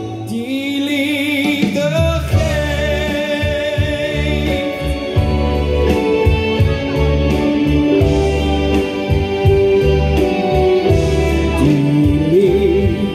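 Party music played through a PA: a song with singing over a backing track, with a steady bass beat. A long, wavering held note sounds in the first couple of seconds.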